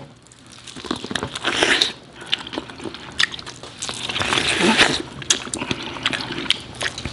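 Two people biting kernels off corn on the cob and chewing, with many short clicks in bursts as the kernels break off.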